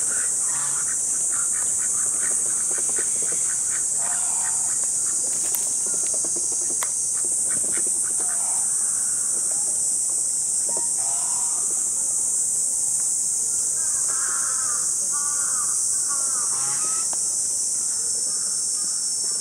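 Cicadas droning steadily and shrilly in the summer trees, with bird calls breaking in now and then, a run of arching calls from about 14 to 17 seconds in.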